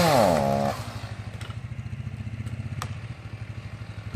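Chainsaw engine dropping from high revs to idle within the first second, then idling with a steady, rhythmic throb; a couple of faint clicks.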